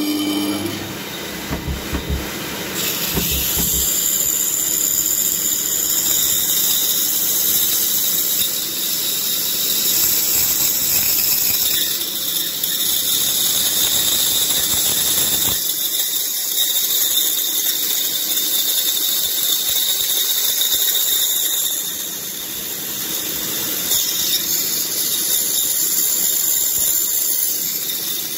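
Pégas fine-cut band saw running, its fine-tooth blade cutting through a butterfly-profiled wooden block to slice off a thin veneer piece. A steady high-pitched whine, dipping briefly a little after two-thirds of the way through.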